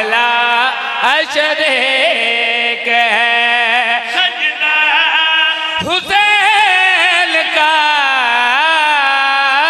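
A man chanting verse in a drawn-out melodic style, his held notes wavering. There are two long phrases, and a new one starts about six seconds in.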